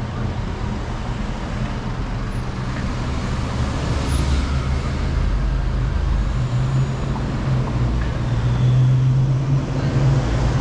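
Street traffic: car engines running and passing at close range, with a low engine rumble that grows louder in the second half.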